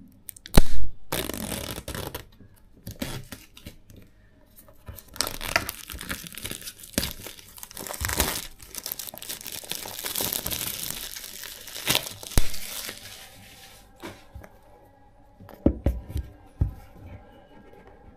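Packaging on a new smartphone box being torn open and crumpled in irregular bursts, with a loud thump about half a second in.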